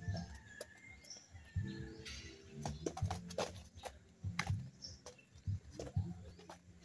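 Irregular sharp slaps and dull thuds of padded boxing gloves striking and blocking, mixed with sneakers scuffing and shuffling on concrete during light sparring.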